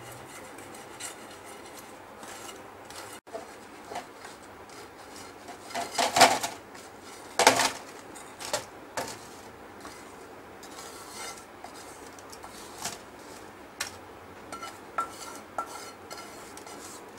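A metal spoon clinking and scraping against a metal pan as masala-coated fried potato pieces are scooped out and served. The scattered knocks include two louder clanks about a second and a half apart, some six seconds in.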